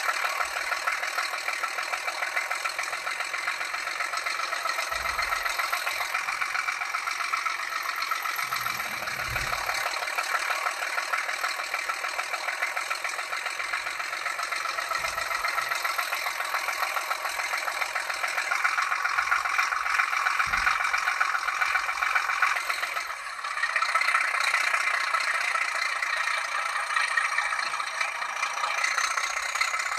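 A DCC sound decoder in an N gauge Graham Farish Class 37 model plays a Class 37 'Slug' diesel engine running sound through its small speaker, thin and without bass. It runs steadily, grows louder about eighteen seconds in, drops away briefly a few seconds later and then picks up again.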